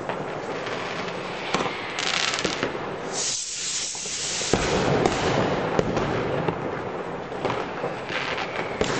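Dense New Year's Eve fireworks, many rockets and firecrackers going off at once in a continuous crackle of bangs. A hissing stretch comes about three seconds in, then a denser, louder run of bangs from about halfway.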